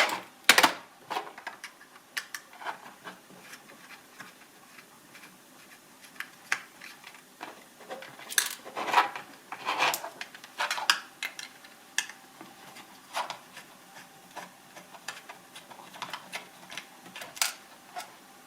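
Hands working on an old notebook's hardware: scattered clicks and taps of small plastic and metal parts, with a stretch of scraping and rubbing about eight to eleven seconds in, as the old hard drive is worked out of its bay.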